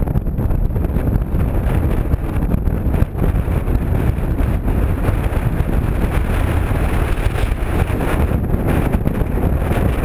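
Strong wind buffeting the microphone: a loud, constant low rumble that flutters unsteadily.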